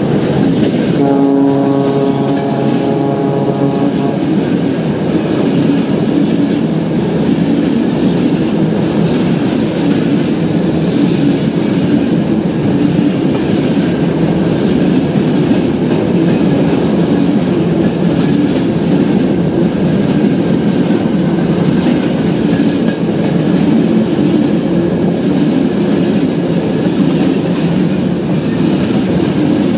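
The ship-style horn on a VL8 electric locomotive sounds one steady blast of about three seconds, starting about a second in. Under it and after it comes the steady noise of a train running on the rails, with a clickety-clack of wheels over rail joints.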